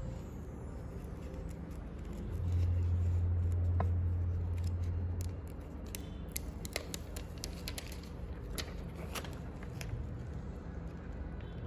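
Adhesive paper shipping label being peeled off its backing and pressed onto a bubble mailer, making crisp paper crackles and scattered sharp ticks over a steady low hum. About two seconds in, a louder low drone swells and holds for about three seconds before dying away.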